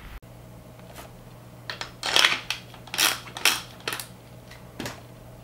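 Dead Air Sandman-S suppressor being twisted onto the threaded muzzle of an AR-style rifle: a scattered series of short metallic clicks and scrapes, metal on metal.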